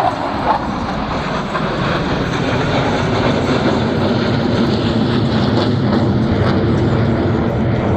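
Jet engine noise from the Blue Angels' F/A-18 jets flying the show, a steady wide rumble that builds slightly over the seconds.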